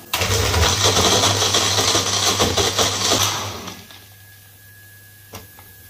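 Amazing Bullet personal blender motor running, blending milk with dates and ice cubes; it starts abruptly and stops after about three and a half seconds. A single light knock follows near the end.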